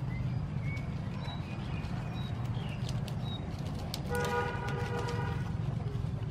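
Sponge gourd vine shoots rustled and snapped off by hand, with scattered sharp clicks over a steady low rumble. Small birds chirp faintly, and about four seconds in a steady held tone sounds for about a second and a half.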